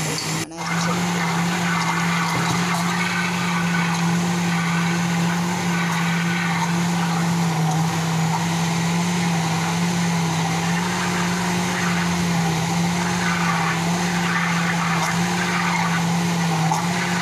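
Electric mixer grinder running steadily as it grinds soaked raw rice and water into idli batter, a constant motor hum with a brief dip about half a second in.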